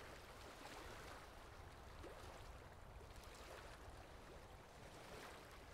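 Near silence: a faint steady hiss, with soft scratching of a felt-tip marker colouring on paper.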